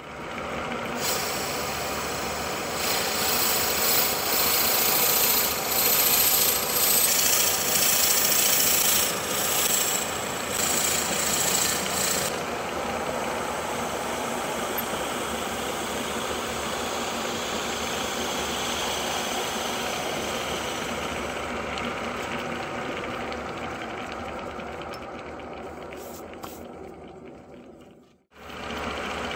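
Wood lathe running while a hollowing tool, then a drill bit, bores into the end grain of the spinning wood. There is a loud scraping hiss of cutting for about the first twelve seconds, then a steadier, gradually fading running sound. It cuts off briefly near the end.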